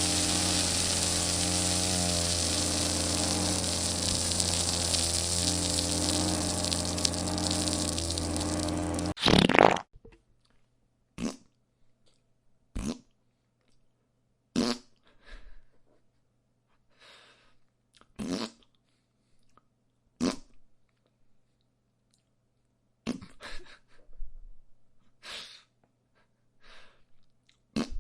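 A string of recorded fart sound effects. The first is long, loud and steady, lasting about nine seconds and ending in a sharp, louder burst. It is followed by about a dozen short, separate, quieter farts spaced a second or two apart.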